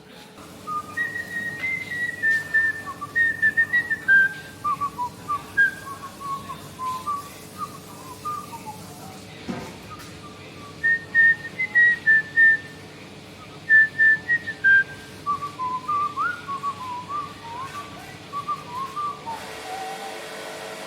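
A person whistling a tune in short, clear notes, the same phrase whistled twice, with a brief pause and a single knock between them. A steady low hum runs underneath.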